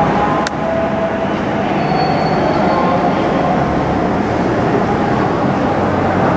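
Steady rumble of heavy city traffic at a busy intersection, with a faint high squeal about two seconds in.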